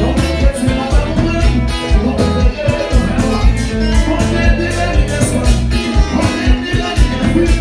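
A live Haitian konpa band playing: electric guitars, bass and drums on a steady beat, with a lead singer on a microphone.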